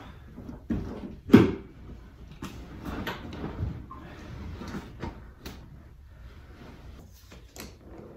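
Irregular knocks, clunks and rustling as old car carpet and interior trim are worked loose and pulled out by hand, with the loudest knock about a second and a half in.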